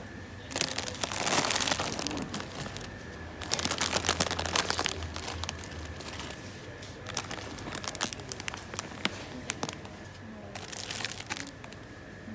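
Crinkling and rustling of something crinkly being handled, in irregular bursts with sharp crackles, loudest about a second in and again around four seconds in.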